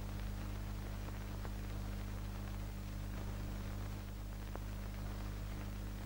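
Steady low hum with faint hiss and a few faint clicks: the background noise of an old film soundtrack.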